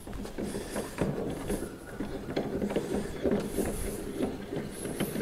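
Pipe-clamp screws being cranked by hand on a wooden bench vise: metal threads and handles rubbing and clicking in uneven strokes as the wooden jaw is worked in and out.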